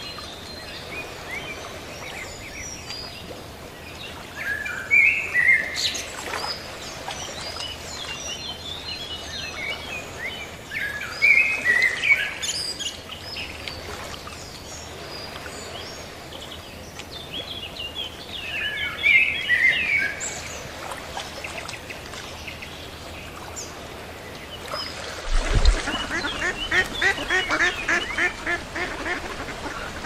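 Small birds chirping in short bursts every few seconds over a steady background hiss. Near the end, ducks break into a run of rapid quacking, just after a brief low thump.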